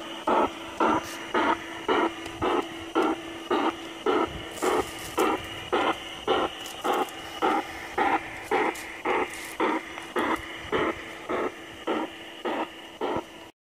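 G-scale model steam locomotive chuffing in an even rhythm, about two chuffs a second, over a steady hum; the sound cuts off abruptly near the end.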